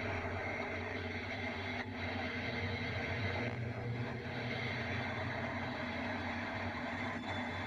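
Steady dark ambient drone of a designed outer-space 'scary sound': a constant low hum under a dense rushing noise.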